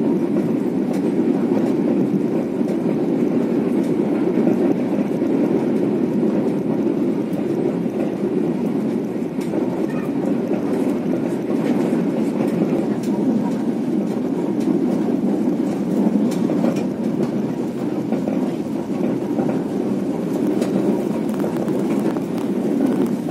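Malioboro Express passenger train running along the track, a steady rumble of wheels on rails with a few faint clicks.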